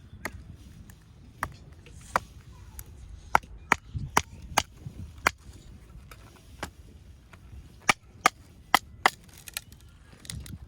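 Small axe chopping firewood: a string of sharp, irregularly spaced strikes of the blade on wood, some coming in quick runs about half a second apart.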